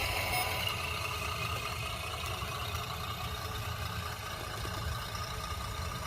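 An engine running steadily at idle, a low rumble that stays even throughout.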